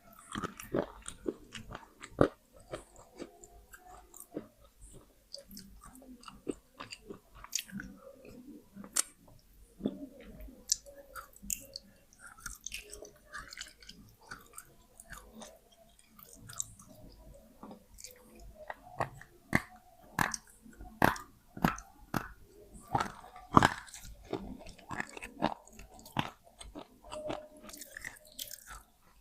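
A person biting and chewing wet slate pencils: a string of sharp, irregular crunches and clicks, louder and more frequent in the second half.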